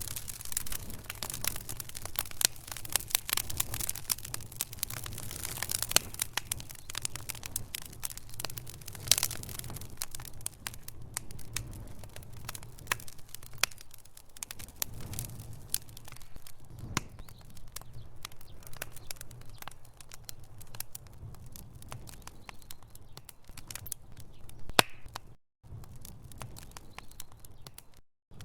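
Wood fire burning in a fireplace: logs crackling with many sharp pops over a low rumble of flame. The sound cuts out briefly twice near the end.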